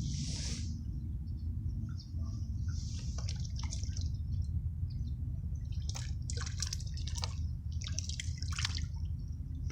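Water splashing and dripping in short irregular clusters, over a steady low rumble.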